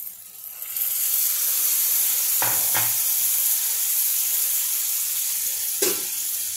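Water poured into a pan of hot oil and eggplant masala hits the oil and sizzles, a loud steady hiss that starts about a second in. Two quick knocks come midway, and one more near the end.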